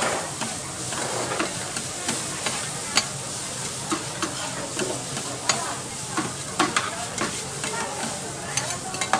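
Noodles and vegetables sizzling on a flat steel griddle, with two metal spatulas scraping and clacking against the plate in an irregular rhythm as they toss the noodles.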